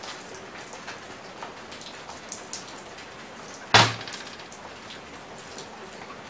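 A metal tin of grease is set down on a workbench with one loud thud about four seconds in. Small scattered ticks and a faint hiss run underneath.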